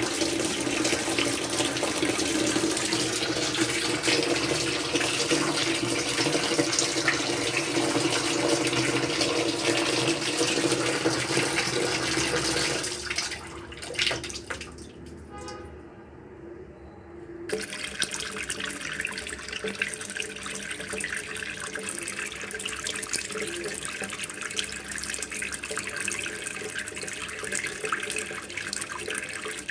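Water running from a tap and splashing into a container, steady. It drops away briefly about 13 seconds in and comes back about 17 seconds in with a thinner, higher splash.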